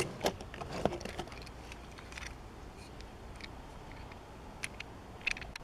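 A few light, separate clicks and taps of die-cast toy cars being handled in a plastic carry case and lifted out, with quiet stretches between.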